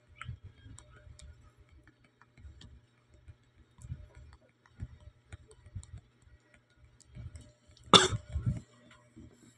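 A person coughing, one loud short cough about eight seconds in and a weaker one just after, over faint low thumps and small clicks.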